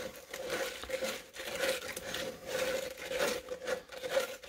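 Cement All mix being stirred in a plastic mixing cup, the stirrer scraping and rubbing around the cup in rough strokes about twice a second. A faint steady hum runs underneath.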